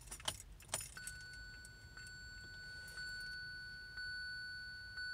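Keys jingle and click twice, then the car's warning chime sounds from about a second in: a steady high ding repeating about once a second.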